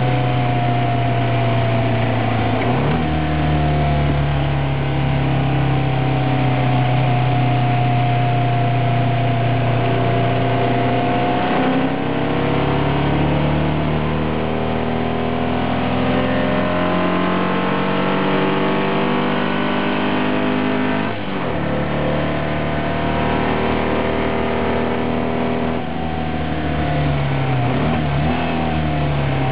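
VW-engined sprint car's engine running hard on track, heard from the cockpit. The engine note holds steady, then drops sharply just before halfway and climbs steadily through about nine seconds of acceleration. It drops again at the next gear change and varies near the end, with lifts and shifts through the corners.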